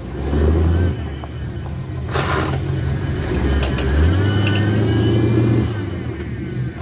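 Old Chevy square-body step-side pickup's engine revving under load as the truck climbs over a dirt pile. The engine swells twice, once near the start and again for longer in the second half, with a short scuff of noise in between.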